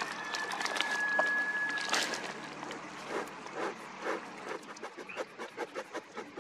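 Wood pellets clicking as they pour into a metal bee smoker, with a thin high steady tone for the first couple of seconds. From about three seconds in, the smoker's bellows are pumped in short, even puffs of air, about two to three a second.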